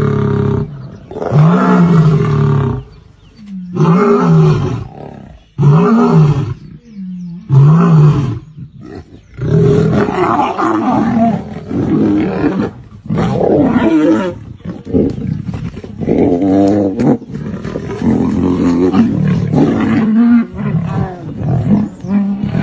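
Lions roaring and snarling in a fight: loud calls that rise and fall in pitch, one every second or two at first, then a denser, almost unbroken run from about ten seconds in.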